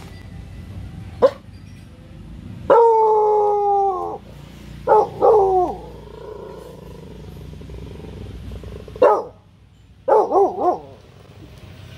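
Four-month-old Rottweiler puppy guard-barking at strangers. It gives a single sharp bark about a second in, then one long drawn-out howling bark. A quick double bark follows, then another single bark, and a rapid string of three or four barks near the end.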